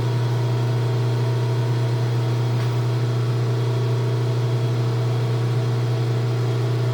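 Steady low electrical hum, even and unchanging throughout.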